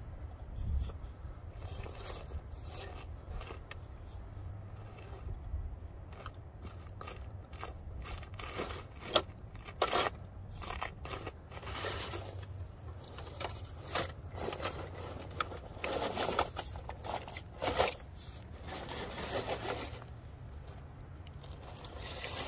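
1/10-scale RC rock crawler's tyres scraping and crunching over rock and loose gravel as it climbs, in short irregular bursts with sharp clicks of stones, coming thicker in the second half.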